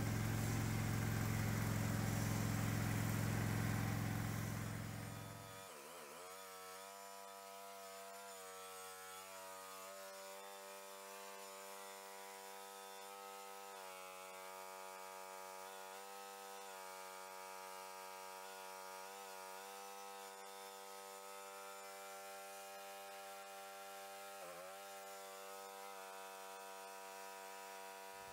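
A small tractor engine running, which fades out about five seconds in. A quieter steady hum of several even tones follows, wavering slightly in pitch a few times.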